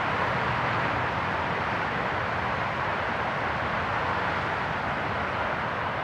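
Steady, even hum of distant road traffic, with no separate events standing out.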